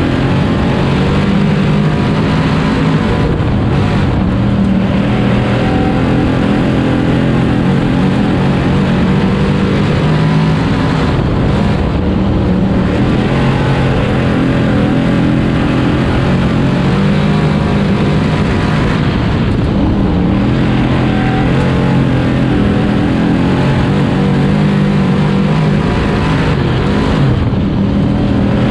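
Dirt sportsman modified race car's engine running hard lap after lap, heard from inside the cockpit, its note dipping briefly about every eight seconds.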